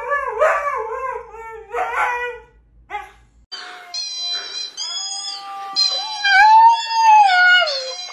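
A husky howls on the cue "sing" in short, wavering notes that slide downward. After a brief pause, a husky puppy howls in long, higher-pitched notes that rise and fall.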